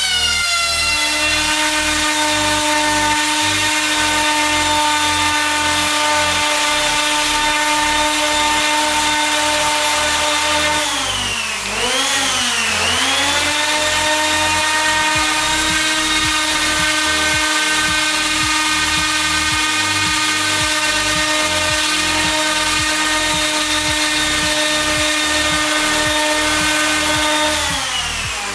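Random orbital sander running steadily on the end grain of a wooden cutting board. Its pitch dips twice around the middle and recovers, then it winds down near the end as it is switched off.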